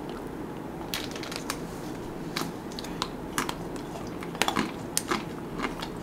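Biting and chewing into the crisp chocolate coating of mini Magnum ice cream bars close to the microphone: scattered sharp cracks and crunches, several a second at times.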